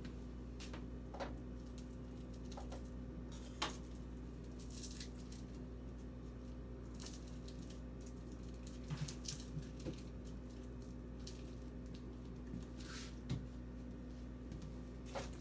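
Sticky Jell-O-coated popcorn being pressed and rolled into balls by oiled hands: scattered faint crunches, rustles and clicks over a steady low hum.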